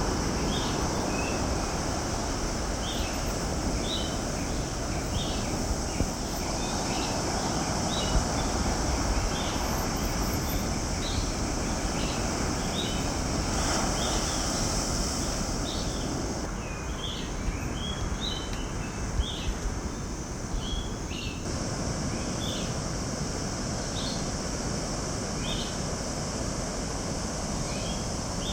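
Steady rush of ocean surf with a constant high insect drone over it and short high chirps repeating every second or so. The rush and drone ease for a few seconds past the middle, while the chirps carry on.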